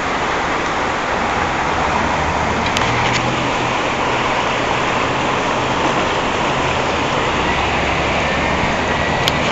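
Steady rushing of a flooded, fast-flowing river, with a couple of faint clicks, one about three seconds in and one near the end.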